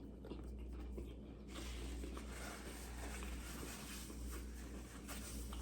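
Quiet room tone: a low steady hum with faint, soft small noises. A faint hiss comes in about one and a half seconds in.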